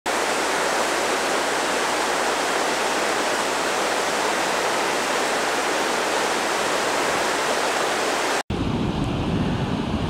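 Floodwater pouring over a wide waterfall, a steady, even rush of water noise from a creek swollen by heavy rain. About eight and a half seconds in it cuts off abruptly and gives way to a lower, deeper rumble.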